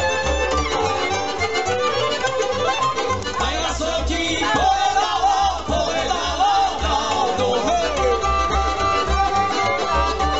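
Live Slovak folk band playing an instrumental passage: a violin and a clarinet carry a wavering melody over cimbalom and an even, pulsing double-bass beat.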